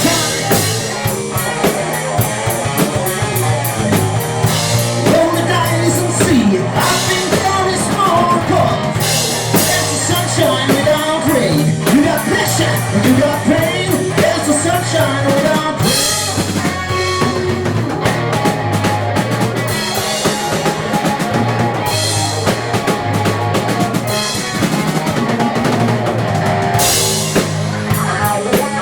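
Live rock band playing: electric guitars over bass and a drum kit, with a steady beat and cymbal crashes every few seconds.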